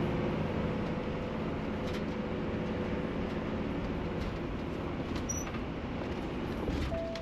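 Cab noise of a Tiffin motorhome driving slowly: a steady engine and road rumble with a faint hum. A short tone sounds near the end.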